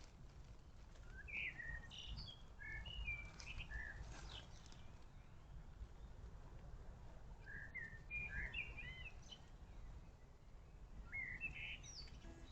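A small songbird singing short chirping phrases in three bursts, over a steady low background rumble.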